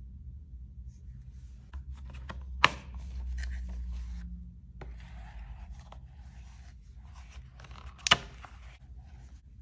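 Hands handling a phone case and its paper packaging: rustling and scraping, with two sharp clicks or taps, the first under three seconds in and the second about five seconds later.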